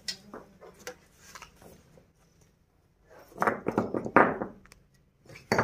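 A few faint knocks, then about a second of rough scraping and clattering among loose bricks and rubble about three and a half seconds in.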